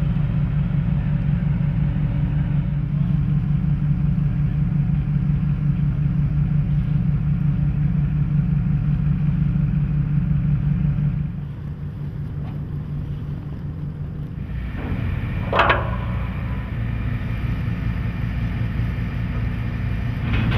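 Tugboat engine running with a steady drone that drops away abruptly about halfway through. A quieter engine drone then builds again, with a single short, sharp clank about three-quarters of the way in.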